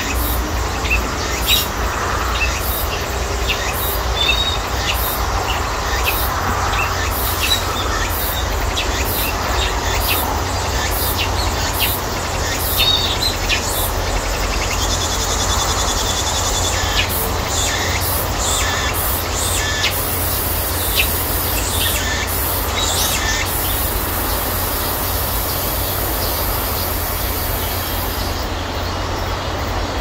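Cicadas shrilling in chorus in a persimmon orchard at the height of summer: a continuous high-pitched buzz with pulsing calls, one steady high drone coming in about halfway through and a higher one running from about two-thirds in until shortly before the end. A few short bird chirps and a steady low rumble lie underneath.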